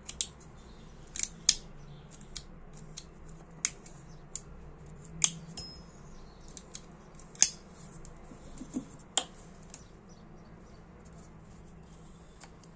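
Ronson Comet flint lighter being worked by hand to test the ignition with a newly fitted, bigger flint: a dozen or so sharp metallic clicks at irregular intervals, stopping about ten seconds in.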